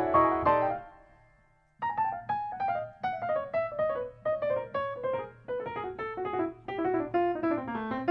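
Background piano music: a few chords ring out and fade almost to nothing, then from about two seconds in a run of separate notes steps mostly downward.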